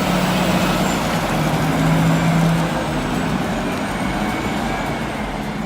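Heavy earth-moving machine's engine running steadily under a loud, even rumble of mechanical noise.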